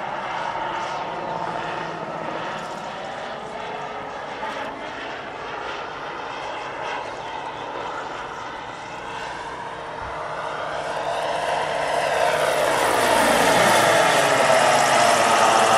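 Turbine engine and rotor of a giant-scale model AH-64 Apache helicopter in flight: a steady turbine whine with rotor noise. From about ten seconds in it grows louder and sweeps down in pitch as the helicopter passes close overhead.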